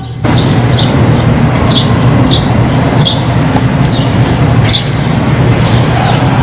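Birds chirping repeatedly in short calls over a loud, steady low rumbling noise.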